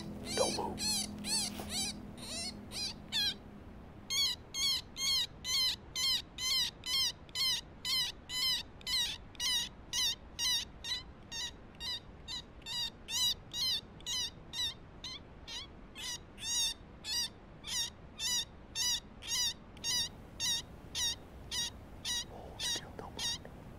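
Predator call giving a steady string of short, high, rising-and-falling squeaks, about two a second with a brief pause near the start, the kind of small-animal distress sound used to coax a coyote in closer.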